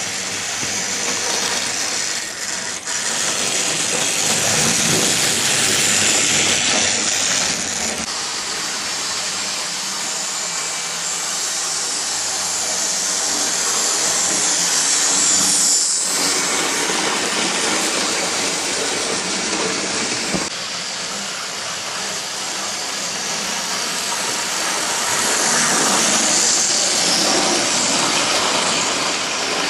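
00 gauge model trains running on the layout's track: a steady whirring and rumbling of small electric motors and wheels on rail that swells as trains pass close, about three times.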